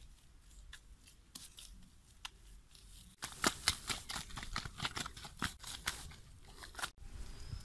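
Dry grass crackling and rustling as it is trodden and worked into wet mud, a dense run of sharp crackles from about three seconds in that stops abruptly near the end. Before that, only faint soft pats and clicks of wet mud being pressed by hand onto a bamboo frame.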